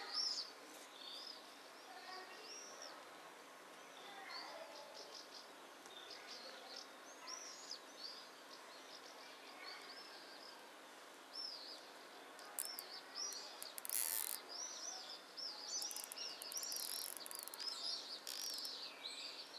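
Small birds chirping, short high chirps repeated throughout and more frequent in the second half. Twice in the second half comes a brief rasping zip of a plastic cable tie being pulled tight around a plastic mesh collar.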